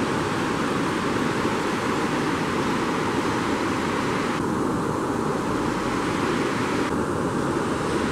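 A fast mountain river rushing steadily over rocks and boulders: an even wash of water noise.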